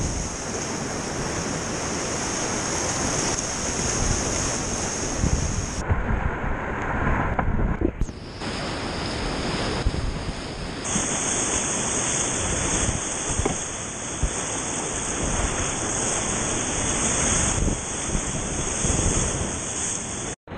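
Whitewater rapids rushing around a kayak, heard close up from on the boat as a steady loud rush of water. About six seconds in, the sound goes muffled for about two seconds.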